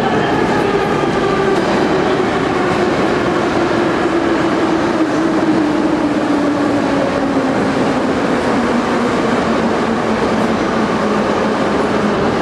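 Moscow Metro train running through the station: a steady rumble of wheels on rail with a motor whine that falls slowly in pitch.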